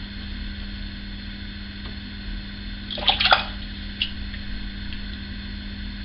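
Shower water running steadily, with a brief scratchy rustle about three seconds in and a smaller one a second later.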